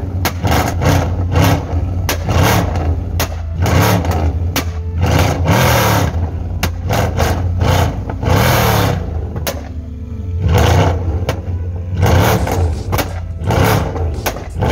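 Ferrari FF's V12 engine running and revving under acceleration, heard from inside the cabin, its pitch rising and falling several times.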